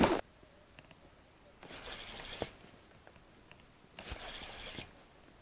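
A spinning reel being cranked in two short spells of just under a second each, about two seconds apart, as a lure is wound in. A louder noise breaks off right at the start.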